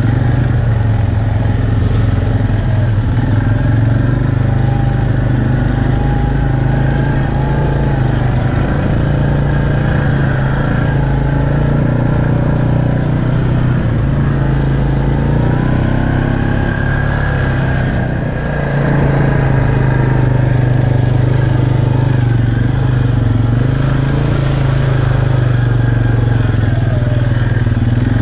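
Can-Am Outlander XMR 570 ATV's V-twin engine running steadily as the quad rides along, with a short dip in level about two-thirds through.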